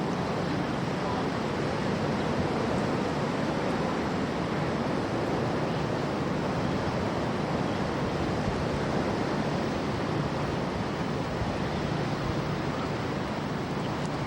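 Steady noise of heavy storm surf and strong wind, with wind buffeting the microphone.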